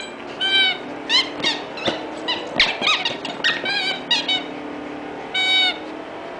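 Welsh terrier chewing a rubber squeaky toy, making a quick, irregular run of short high squeaks as her jaws squeeze it. After a brief pause there is one longer squeak near the end.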